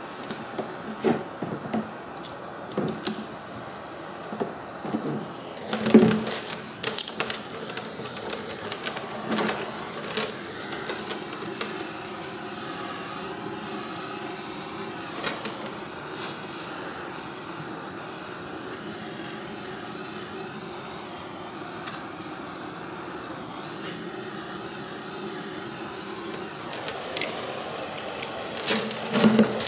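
Handheld Bernzomatic propane torch hissing steadily while it heats a plastic grass-catcher chute. Scattered knocks and clatter from locking pliers and from handling the stiff plastic chute, most of them in the first ten seconds, the loudest about six seconds in, and a few more near the end.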